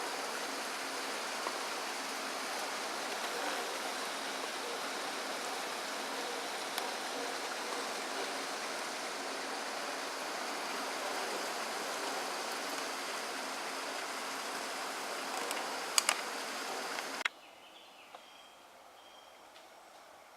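Steady, even rushing noise of outdoor ambience with no speech. It cuts off abruptly about three seconds before the end, with a few sharp clicks just before it stops, leaving a much fainter background.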